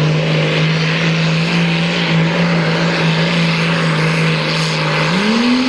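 Classic modified pulling tractor's engine running wide open under load as it drags a weight-transfer sled, at a steady pitch; about five seconds in the revs climb sharply.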